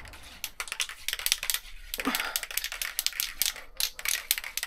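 Aerosol spray-paint can being shaken hard, its mixing ball rattling inside in rapid, uneven clicks.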